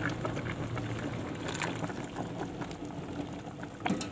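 Pot of coconut-milk vegetable soup with katuk leaves and spinach bubbling on the boil, with small crackling pops, as thick coconut milk is poured in. A couple of sharp clicks near the end.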